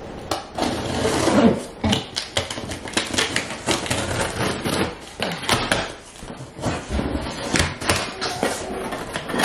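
A large cardboard shipping box being cut open with scissors and unpacked: irregular clicks, scrapes and rustles of blades on tape and cardboard and of packaging being handled.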